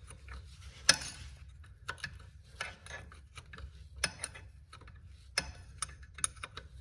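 Hand tool working a brake splash-guard bolt loose, heard as a run of scattered sharp metallic clicks and clinks, the loudest about a second in.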